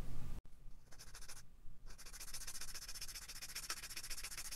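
A small clear plastic model canopy piece being sanded on a sanding stick: quick, fine, scratchy rubbing strokes, faint at first, then steady and continuous from about two seconds in.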